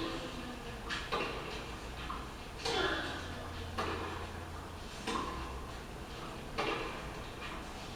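Tennis rally heard from a TV broadcast: racket-on-ball strikes about once a second, some followed by a short player's grunt, over a faint steady low hum.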